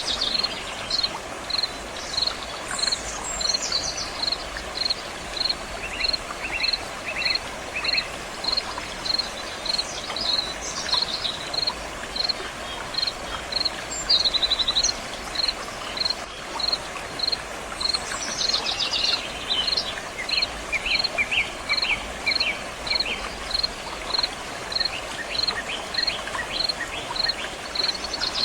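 Steady rushing of flowing water, with a cricket chirping evenly about three times every two seconds and birds calling now and then, most busily about two-thirds of the way in.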